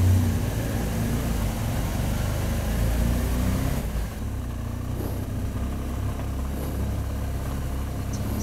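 BMW R1200 GS Adventure boxer-twin engine running at low speed in traffic, a steady low rumble that eases off briefly about four seconds in.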